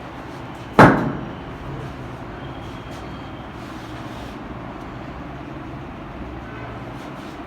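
A single sharp thump about a second in, from a chiropractic thrust on the back of a patient lying face down, over a steady low hum.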